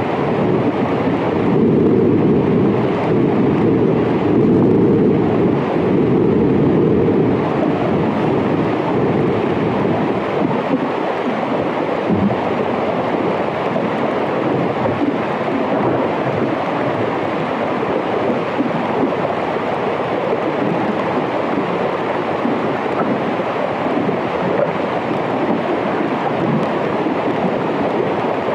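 Hydrophone recording of a melting glacier under water: a dense, steady wash of noise. It is louder and deeper until about seven seconds in.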